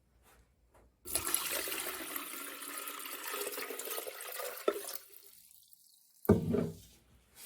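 Water being poured into the top-fill tank of a Homvana 3.6 L cool-mist humidifier, splashing for about four seconds before stopping. A brief handling sound follows near the end.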